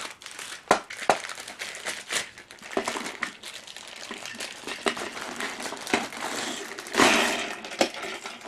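Thin plastic packaging crinkling and rustling as a toy train is unwrapped from its bag, with scattered small clicks and a louder rustle about seven seconds in.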